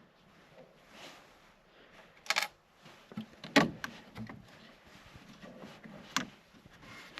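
Handling noises from work on wiring and small parts: three short sharp clicks or knocks, about two and a half, three and a half and six seconds in.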